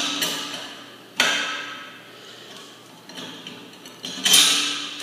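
Two sharp metallic clacks about three seconds apart, each fading over about a second, with a few faint clicks between them. They come from locking pliers working a nut and socket on a steel threaded tie rod as a cast iron radiator is drawn together.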